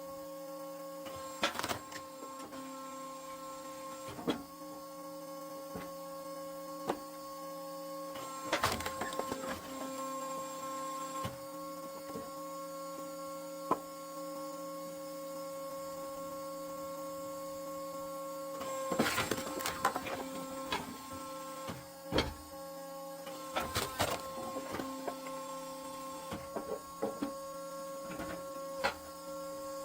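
Horizontal hydraulic wood splitter running with a steady hum, broken by scattered knocks and cracks from the wood and machine, in clusters about a third of the way in and again past the middle.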